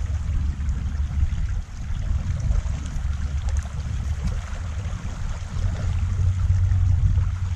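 River current flowing around a drifting aluminum boat, with a strong low rumble that rises and falls.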